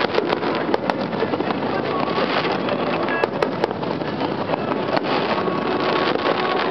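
Aerial fireworks shells bursting, a string of sharp bangs with several in quick succession about three seconds in, over a continuous dense rumble and crackle.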